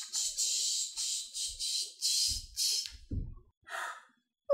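A woman taking a quick run of about six noisy, sniffing breaths, as if sobbing, followed by a couple of softer breaths near the end.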